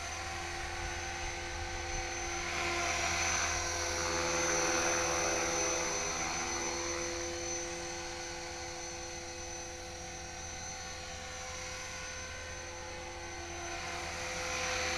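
HK-450GT electric RC helicopter in flight: a steady high whine of its motor and drive over the hum of the rotors. It swells louder for a few seconds in the middle, then eases back.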